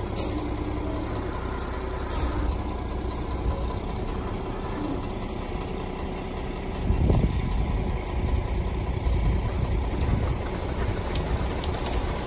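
Concrete mixer truck's engine running steadily as the truck discharges concrete down its chute into a post hole; the engine gets louder about seven seconds in.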